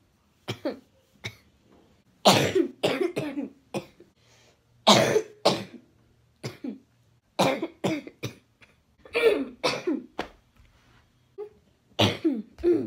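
A boy coughing over and over, in short sharp coughs that come singly or in quick runs of two to four, with brief gaps between them.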